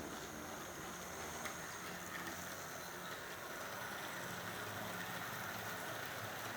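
Steady rain falling: an even hiss with a few faint ticks of drops.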